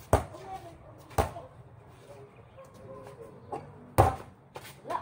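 Basketball hitting a concrete court: a handful of sharp bouncing knocks, the loudest about four seconds in, with faint voices between them.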